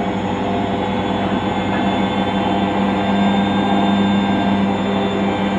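Washing machine drum spinning up to 800 rpm in its spin cycle: a steady motor hum with a held tone, growing slightly louder.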